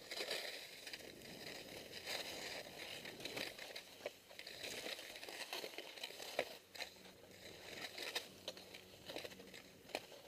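Skis scraping and hissing over snow, the sound swelling and fading every couple of seconds as the skier turns, with scattered sharp clicks and knocks.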